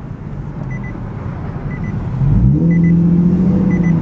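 Nissan 370Z's 3.7-litre V6, breathing through high-flow cats and a GTHaus Meisterschaft axle-back exhaust, heard from the cabin: a low rumble, then revving up about two seconds in and pulling on load with a steady, louder note. A short double-beep warning chime repeats about once a second: the parking brake is still on.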